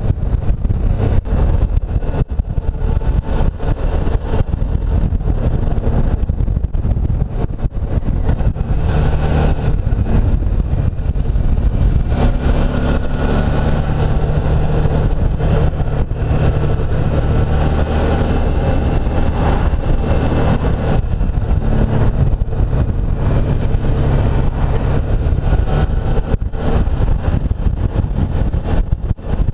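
Suzuki V-Strom's V-twin engine running at road speed, heard from on the bike, its note rising and falling with the throttle.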